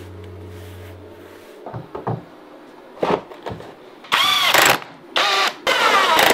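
Cordless drill running in three short bursts, its motor pitch rising and falling with the trigger, as when driving screws; a few knocks come before it, and background music fades out at the start.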